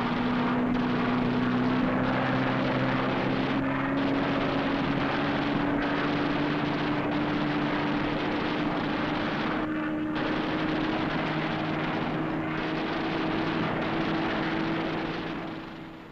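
Piston-engined fighter plane's engine droning at high power, a steady loud noise whose pitch climbs slowly throughout. It fades in the last second.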